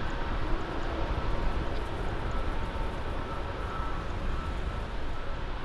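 Airbus A330 jet airliner on final approach, its engines making a steady low rumble as it comes down over the runway to land.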